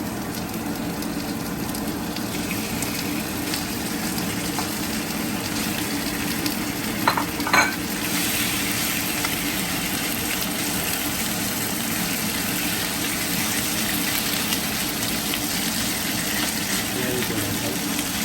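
Fish fillet pieces sizzling in hot oil as they are stir-fried in a pan, a steady frying hiss. About seven seconds in there are two sharp clinks of a utensil, and the sizzling grows louder after them.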